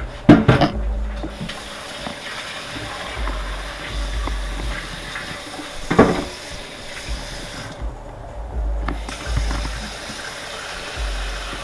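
Steady rush of water, with two sharp metal knocks, one near the start and one about six seconds in.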